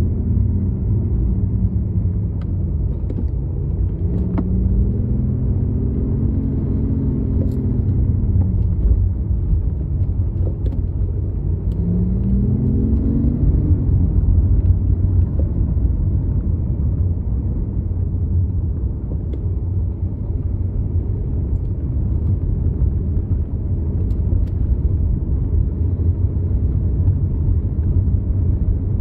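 BMW i8's turbocharged three-cylinder engine pulling through city driving, its pitch rising and falling a few times in the first half as the car speeds up and slows. This runs over a steady low road and tyre rumble, which is all that remains in the second half.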